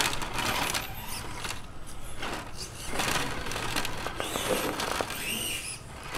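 Axial Deadbolt RC rock crawler whirring under power as it climbs a rock pile, with its tyres and chassis scraping and knocking on the stones.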